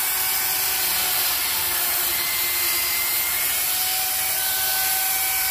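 Corded electric chainsaw running steadily, a motor whine over the rushing noise of the chain, as it works a thick wooden slab.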